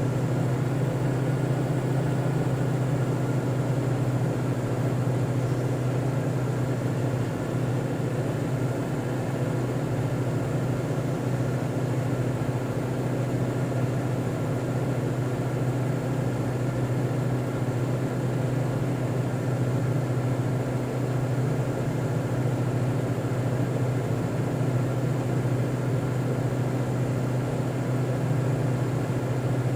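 A steady low hum with an even hiss over it, unchanging throughout, with no rise and fall of breathing.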